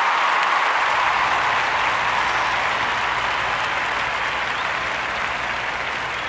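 Crowd applauding, a steady even noise that slowly fades toward the end.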